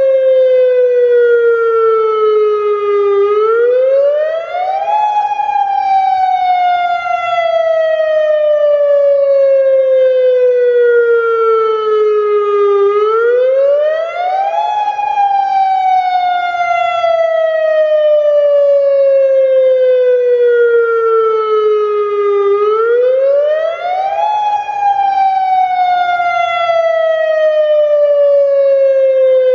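Federal Signal Modulator electronic outdoor warning siren sounding its wail tone, loud, during a routine siren test. Its pitch climbs quickly over about two seconds, then slides slowly down for about eight, and the cycle repeats three times.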